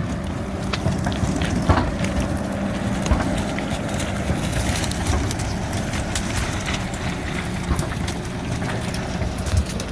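Sherp 10x10 amphibious all-terrain vehicle's engine running steadily under way, with a low hum and scattered clicks and knocks.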